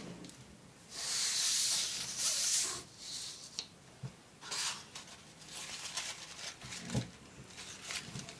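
Sheet of paper rustling and crinkling as it is folded and pleated by hand: a long, loud rustle about a second in, then several shorter crinkles.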